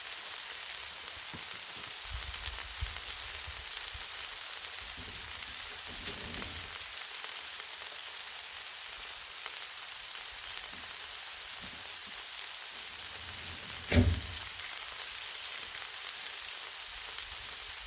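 Frozen chicken tenderloins sizzling steadily in vegetable oil on a Blackstone flat-top griddle, a continuous high frying hiss. A single sharp knock sounds about two-thirds of the way through.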